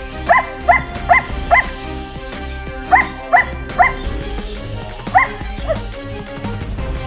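Border Collie barking in short, sharp barks over background music: four in quick succession, a pause, three more, then a single bark after another pause.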